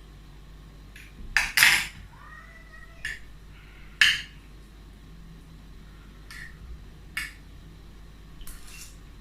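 Cutlery clinking and scraping against a plate of food, about six sharp clinks spread over several seconds, two of them louder.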